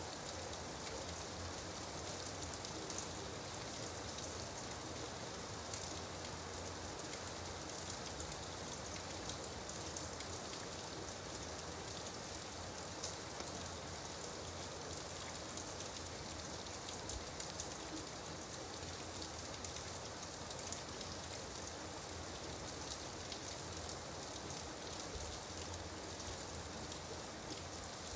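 Gentle, steady rain falling, with scattered louder drops standing out from the even patter.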